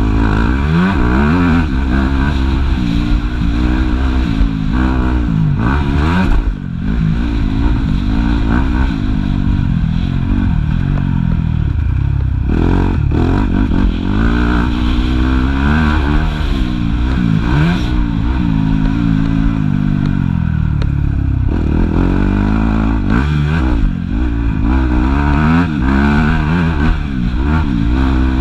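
Yamaha YZ250F four-stroke motocross bike engine, heard close up from on board, revving up and down repeatedly as the throttle is worked, with a few brief drops off the throttle.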